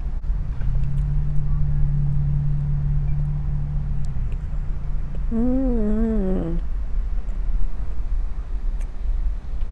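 A woman humming 'mmm' with her mouth closed while chewing food. There is a long steady low hum, then about five seconds in a shorter 'mmm' whose pitch wavers up and down, over a low steady rumble inside the car.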